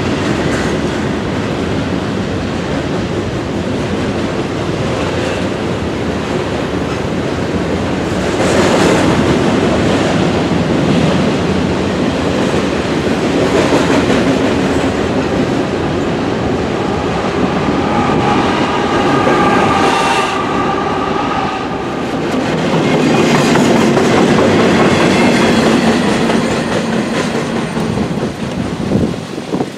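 Double-stack intermodal freight cars rolling past, a loud steady rumble of steel wheels with clickety-clack over the rail joints. It drops away just before the end as the last car passes.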